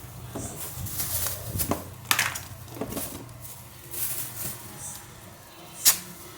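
Rustling and light knocking as potatoes are handled and put away, with two sharp clacks, one about two seconds in and a louder one near the end.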